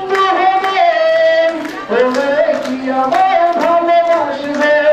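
A man singing into a hand-held microphone, amplified over a PA, with long held notes and slides between them.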